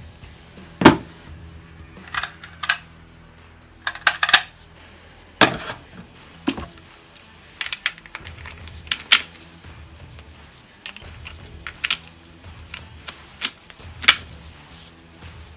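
Irregular sharp cracks and metallic clicks from a 4.5 mm CO2 AR15-style air rifle, about a dozen spread unevenly, loudest near the start and near the end, over quiet background music.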